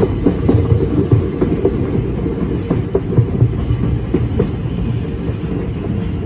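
R142 subway car running on the track, heard from inside the car: a steady rumble of wheels on rail with frequent irregular clicks and knocks.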